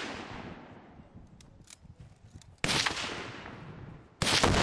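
Heavy single gunshots, each a sharp blast followed by a long rolling echo that dies away over a second or more. The shots come about two and a half seconds in and again near the end, with the tail of an earlier shot at the start.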